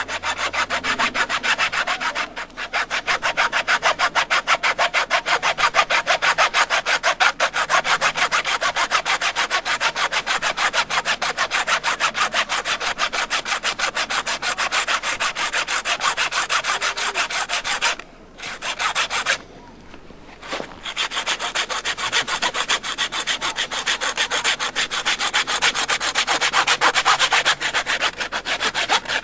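Hacksaw cutting through a roe deer's skull bone in rapid, even back-and-forth strokes, stopping briefly twice a little after halfway.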